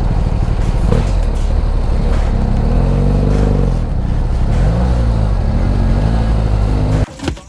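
A motor vehicle's engine revving hard again and again, its pitch rising and falling, as the vehicle struggles stuck on a rough off-road track. The sound cuts off abruptly about seven seconds in.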